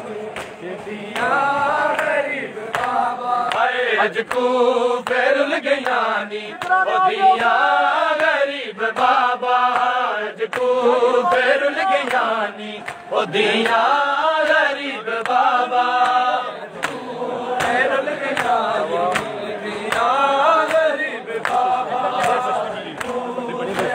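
A group of men chanting a noha, a Shia lament, together in repeated melodic phrases that rise and fall.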